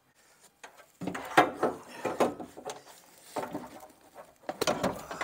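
New Chevy Impala window regulator and motor assembly clattering and scraping against the door's inner sheet-metal panel as it is worked into the door, a run of irregular knocks and rubs starting about a second in.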